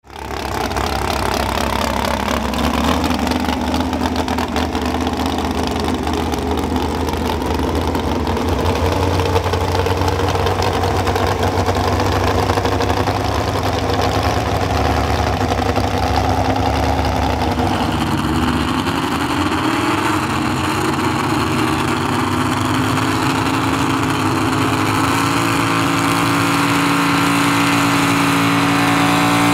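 Pro Stock 4x4 pulling truck's engine idling steadily while hooked to the sled, then revving up slowly, its pitch climbing through the last ten seconds as it readies to pull.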